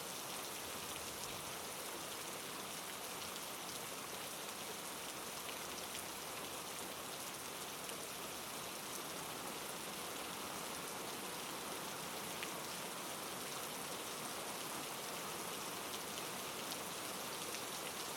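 Steady rain falling, an even hiss of rain with faint scattered drop ticks.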